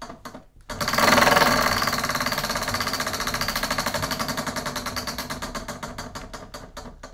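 Hand-spun prize wheel with clear plexiglass pegs round its rim, its pointer clicking against the pegs as they pass. A few clicks as the hand starts it, then a fast rattle of clicks about a second in that slowly spaces out and fades as the wheel loses speed.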